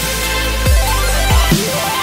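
Electronic dance music with heavy bass and kick drums, and a synth line climbing in steps through the second half.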